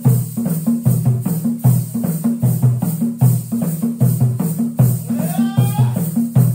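Dance music with a steady drum beat, a repeating bass line and shaker percussion. About five seconds in, a voice calls out with a rising glide.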